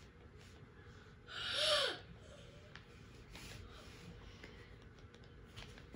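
A single short, breathy vocal noise from a person, with a squeaky pitch that rises and falls, about a second and a half in. Otherwise only faint room sound.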